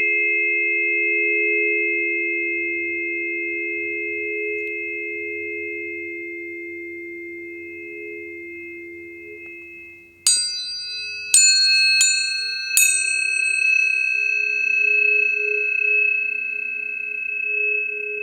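Tuning forks ringing with pure, sustained tones that slowly fade. About ten seconds in, forks are struck four times in quick succession. Each strike gives a bright metallic ping with high overtones that die away fast, leaving new steady tones ringing.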